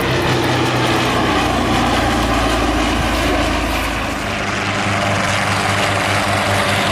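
Propeller aircraft with radial piston engines running at high power as they fly low past. About four seconds in, the deep rumble gives way to a pulsing propeller beat.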